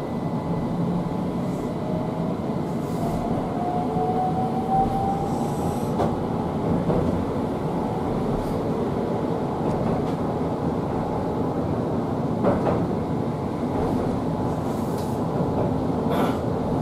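Keihan 800 series train heard from inside the passenger car: a steady rumble of wheels on rail, with the traction motors' whine rising in pitch over the first few seconds as the train accelerates. A couple of faint clicks come later.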